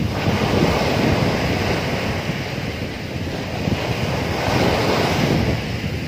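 Sea surf on a sandy beach: small waves breaking and washing up the shore in foam, a continuous rushing hiss that swells right away and again about five seconds in.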